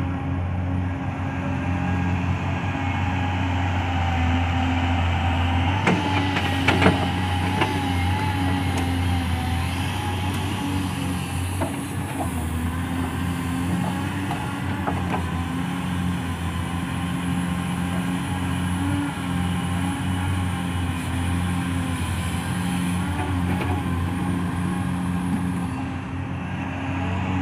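Heavy diesel engines of a Hyundai 480LC-9S crawler excavator and Caterpillar 740 articulated dump trucks running steadily while the excavator digs and loads sand. A few sharp metal clanks come about six to seven seconds in.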